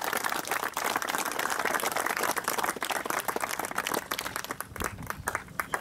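A small group of people applauding, the clapping thinning out to a few separate claps near the end.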